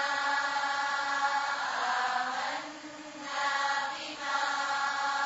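Chanted Arabic recitation of a Quranic supplication, sung in long held notes: two drawn-out phrases with a short break about three seconds in.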